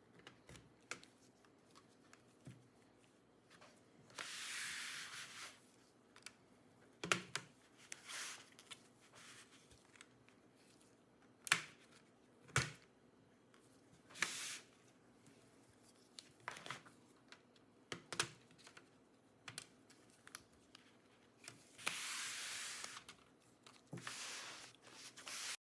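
Plastic perimeter clips of an Acer Nitro V 16 AI laptop's bottom cover snapping loose one by one as a plastic pry pick is worked along the seam: a scattering of sharp clicks, with two longer scraping sounds of the pick sliding along the edge.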